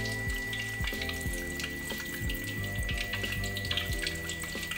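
Hot oil sizzling and crackling as skewered popia rolls deep-fry in a wok, over background music with a steady beat.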